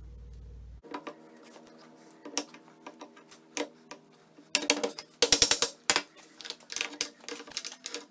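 Metal clinking and knocking as the steel bending die and pins of a homemade tube bender are handled and fitted on its frame: a run of sharp clicks, each with a short metallic ring, thickest a little past the middle. A low hum cuts off just under a second in.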